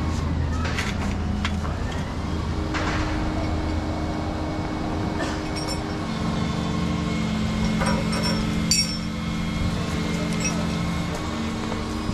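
Volvo 235EL excavator's diesel engine running steadily, its note shifting slightly about six seconds in. A few light metallic clinks are heard over it, the sharpest near the end.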